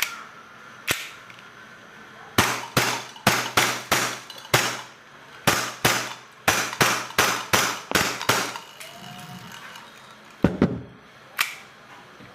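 Airsoft pistol firing a long string of sharp shots: two single shots, then about fifteen shots in quick irregular succession, a short pause, and two more near the end.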